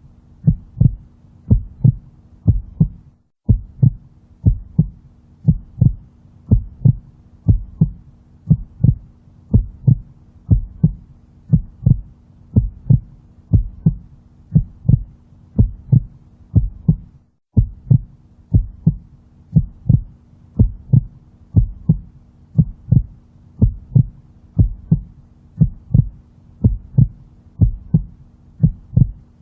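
Heartbeat sound: a steady lub-dub of paired low thumps, a little faster than one beat a second, over a faint steady hum. The beat drops out briefly twice, about 3 seconds in and about 17 seconds in.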